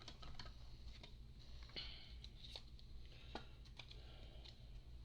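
Faint clicks and rustles of baseball cards and plastic card sleeves being handled, over a low steady hum.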